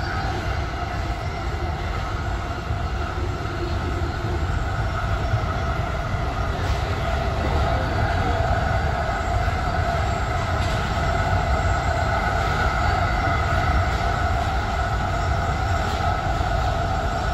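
AirTrain JFK car (a Bombardier ART light-metro car) running at speed on its elevated guideway, heard from inside: a steady rumble of wheels on rail with a steady high whine over it, growing a little louder about halfway through, and a few faint ticks.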